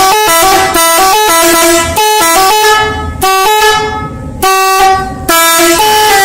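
Multi-tone 'telolet' bus horn playing a quick tune: a run of loud pitched notes stepping up and down, with short breaks between phrases.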